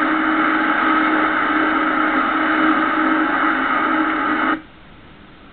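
Film soundtrack playing through a television's small speaker: a steady hiss-like wash with a few held tones, cutting off suddenly about four and a half seconds in.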